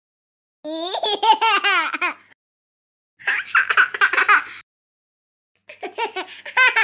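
Three bursts of high-pitched laughter, each cutting off sharply into dead silence.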